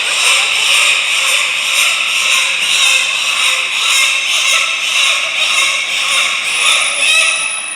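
Dolphins vocalising: a steady, dense run of high squeaks, whistles and clicking, with some rising whistles near the end.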